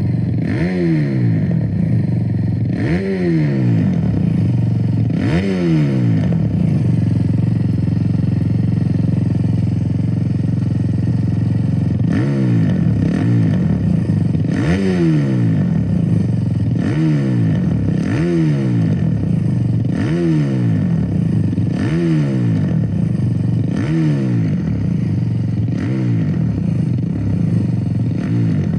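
Kawasaki KX450 supermoto's single-cylinder four-stroke engine being blipped: quick throttle revs that rise and fall back to idle, about one every two seconds. The engine idles steadily for several seconds in the middle before the revving starts again.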